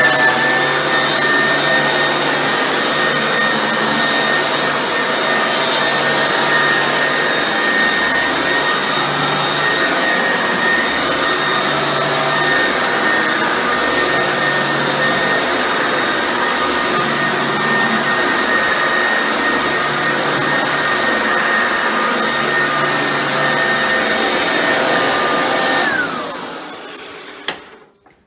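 Eureka Bravo upright vacuum running at full power over carpet, its motor freshly rebuilt with one new bearing: a steady high whine with a low hum that swells and fades every second or two. Near the end it is switched off, and the whine falls in pitch as the motor winds down, followed by a click.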